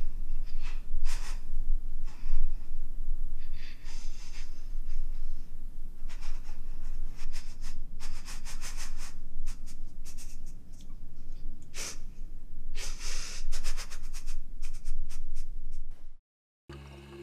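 A young woman crying: shaky sobbing breaths, sniffles and gasps in uneven bursts. It cuts off suddenly near the end.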